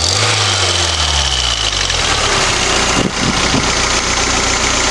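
Toyota MR2's turbocharged 3S-GTE four-cylinder engine idling, its revs settling down over the first couple of seconds, with a strange ticking running through the idle whose cause is not yet known.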